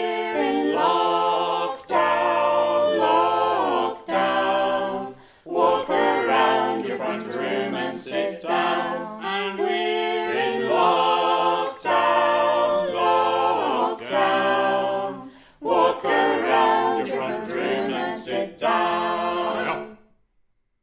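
Mixed group of six voices singing a shanty a cappella; the singing stops shortly before the end.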